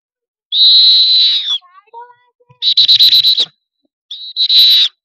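A sports pea whistle blown hard in three goes: one long steady blast, then a rapid fluttering trill, then a short toot running straight into another long blast near the end.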